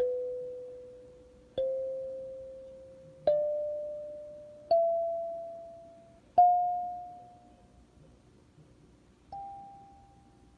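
Kalimba played slowly, one plucked tine at a time, each note ringing and fading away. Six notes in all, climbing a step higher each time, the last one softer and after a longer pause.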